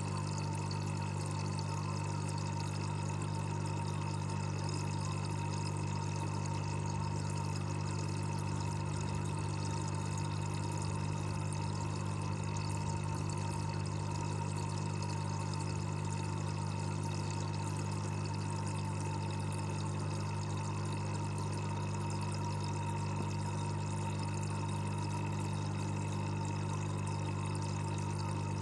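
Aquarium aeration bubbling steadily, heard underwater, over a constant low hum.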